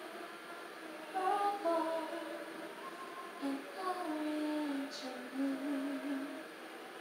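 A woman humming a slow tune with long held notes.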